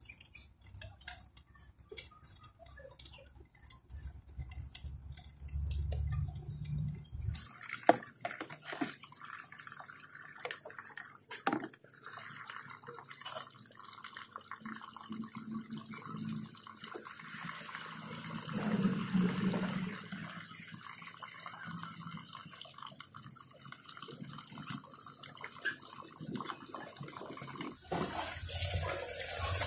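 Water splashing and dripping as a wet dog is washed by hand over a tub of water, with scattered clicks and knocks.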